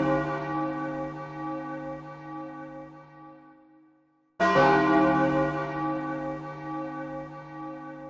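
A large church bell tolling. The ringing of one stroke fades away slowly, then the bell is struck again about four and a half seconds in and rings out and fades again.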